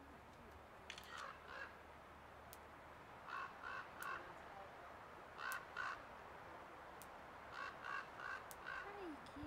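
Crows cawing faintly in short series of two to four caws, repeated several times, with a few faint clicks in between.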